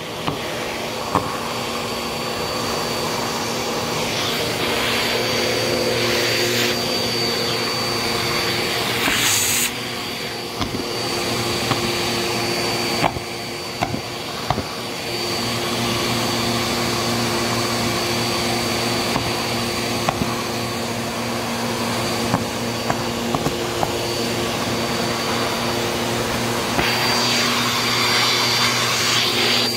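Bissell vacuum cleaner running steadily through its hose wand with a high whine, sucking paper petals and glitter confetti off a shag rug. Its note and level shift a few times as the airflow changes, and scattered short clicks and rattles come as pieces go up the hose.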